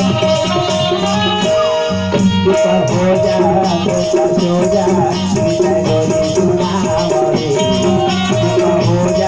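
Devotional folk music: a harmonium plays a held melody while a shaker keeps up a fast, steady rattle and tabla drums play along underneath.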